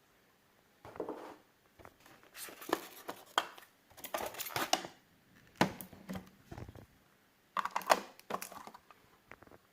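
Packaging being handled and unwrapped: plastic wrap crinkling and rustling with light knocks, in irregular bursts every second or two.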